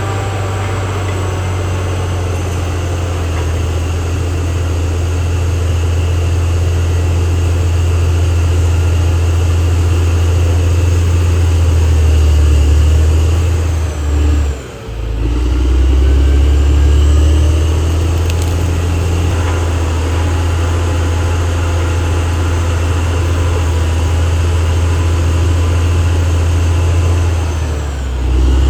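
Caterpillar D6R XL bulldozer's diesel engine running steadily under load, a loud low rumble with a fainter high whine over it. The sound drops out briefly about halfway through, then comes back.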